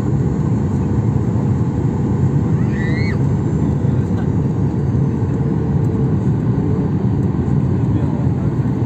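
Jet airliner cabin noise heard from inside the passenger cabin: a deep, steady rush of engine and airflow noise during the descent towards landing.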